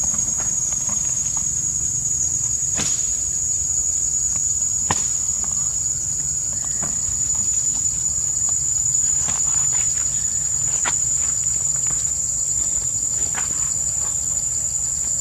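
A steady, high-pitched drone of insects, unbroken throughout, with scattered light clicks and rustles over it.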